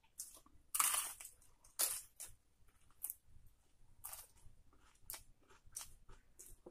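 Close-miked eating sounds: crunchy bites and chewing of crisp fried food, a string of short, sharp crunches, the loudest about a second in and again just before two seconds.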